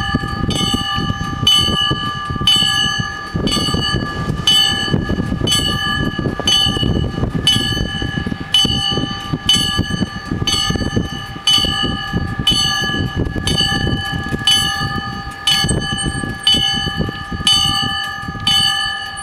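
Level-crossing warning bells ringing with even strokes about once a second, warning of an approaching train as the barriers come down. The strokes stop near the end and the ringing tone fades away.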